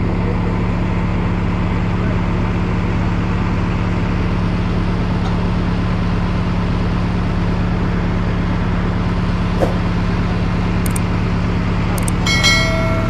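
JCB 3CX backhoe loader's diesel engine running steadily, with a sharp click about ten seconds in and a brief high-pitched squeal near the end.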